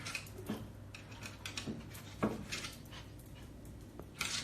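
A Chihuahua moving about, making scattered light clicks and scratches, with one sharper knock a little past halfway.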